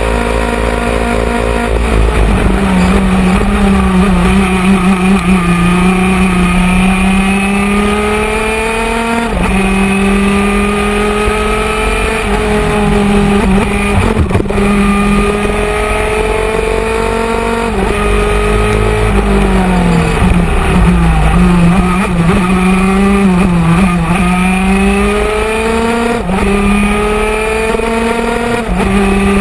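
Onboard sound of a 125cc two-stroke superkart engine at racing speed, its note climbing as it revs out and dropping sharply at each gear change. About two-thirds of the way through the pitch falls away for a few seconds, then climbs through the gears again.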